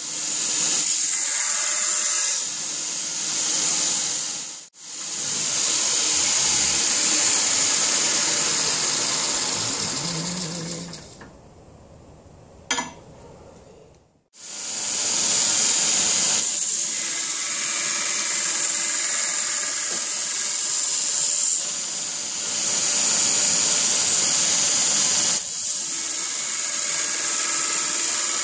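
Belt grinder grinding the bevel of a forged steel blade: a steady hiss of steel against the abrasive belt. About halfway through it falls away to a quiet stretch with a single click, then starts again abruptly.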